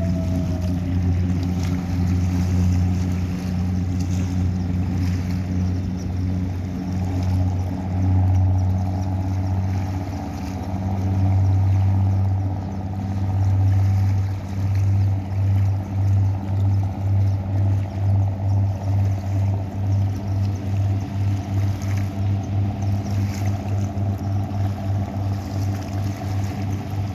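Express passenger riverboat under way at speed, its engines giving a steady low drone over the rush of its wake. About halfway through, the drone takes on a regular pulsing beat, just under two a second.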